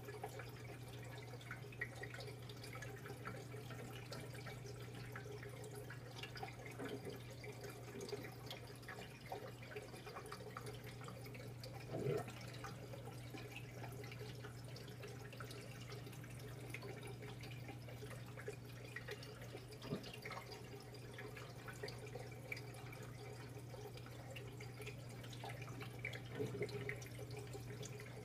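Aquarium water trickling and dripping where the filter return disturbs the surface, over a steady low hum, with a few louder drops scattered through.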